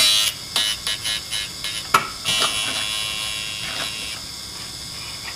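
TDR 82B drill grinder's wheel grinding the point of a drill bit during web thinning, a high-pitched buzzing grind in a series of short contacts. The first is the loudest, with a sharp click about two seconds in and a longer grind after it, as the point is being split with a very light cut.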